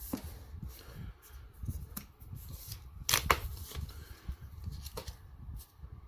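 Watch packaging being handled and opened by hand: rustling with scattered sharp clicks and knocks, the loudest a little after three seconds in.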